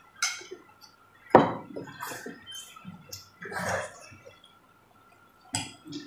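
Several children slurping and eating instant noodles, with short wet slurps and the knock and clink of forks and spoons against bowls. The loudest is a sharp knock about a second in.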